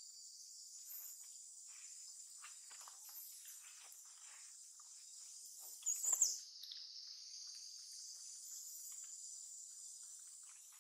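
Steady high-pitched chorus of insects, with a brief louder call or squeak about six seconds in.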